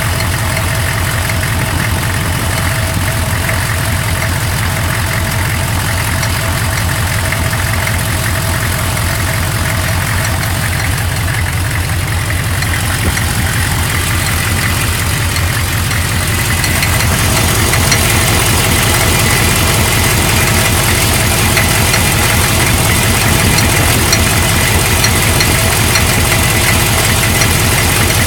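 GM 6.5-litre V8 diesel idling with open exhaust manifolds, a steady rapid diesel clatter. Within it is a strange metallic sound that the owner hears only at idle. From about seventeen seconds in the sound grows a little louder and brighter, with a thin steady tone above it.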